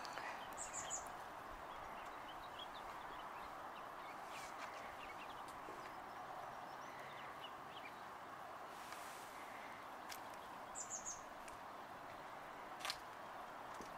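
A small bird chirping twice, each time a quick cluster of high notes: once near the start and again about eleven seconds in, over a faint steady outdoor hum. A single sharp click sounds near the end.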